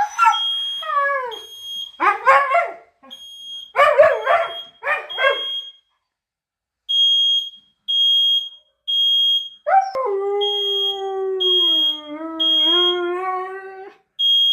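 Smoke alarm sounding a high, steady beep in repeating groups of three, while a Siberian husky howls along: a few short falling cries and yelps in the first five seconds, then one long wavering howl from about ten seconds in.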